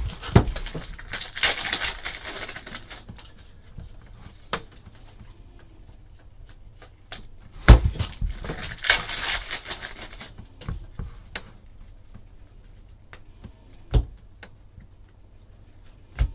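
Trading cards being handled over a table: two stretches of rustling and crinkling, with several sharp knocks of cards and hands set down on the tabletop.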